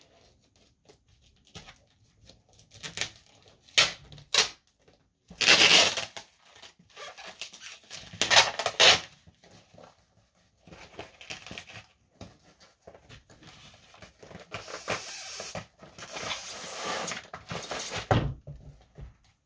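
Padded paper mailer being torn open and handled, with irregular bursts of ripping and crinkling and a longer stretch of rustling as it is emptied; a single thump near the end.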